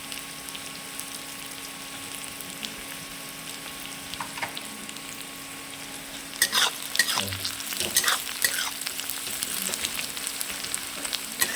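Mixed vegetables frying and sizzling in a pan. From about six seconds in, a spoon stirs and scrapes through them in quick strokes.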